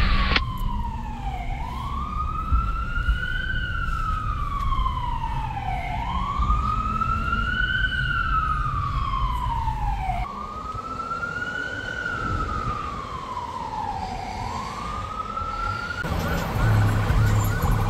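Emergency vehicle's electronic siren on a slow wail, rising and falling about once every four seconds over a low traffic rumble. Near the end the siren changes to a busier, faster-changing sound with a heavier rumble.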